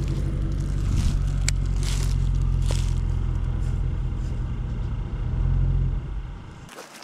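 A motor vehicle's engine running steadily at a constant speed, with a few light knocks and clicks. It dies away near the end.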